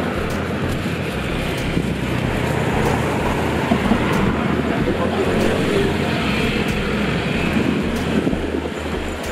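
Steady road traffic noise: an even rumble of vehicles with a constant low hum.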